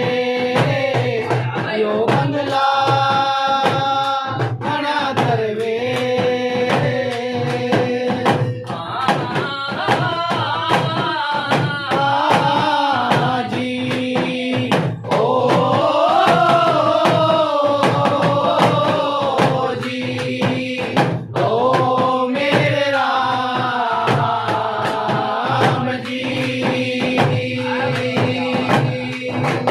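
A devotional bhajan sung with long, wavering held notes, accompanied throughout by quick, steady strokes on a deru, the small two-headed folk drum.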